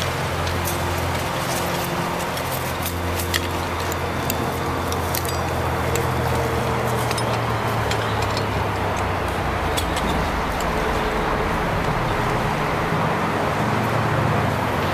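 Fire engine diesel engine idling steadily, a low even hum, with scattered light clanks of hose couplings and hydrant fittings being handled.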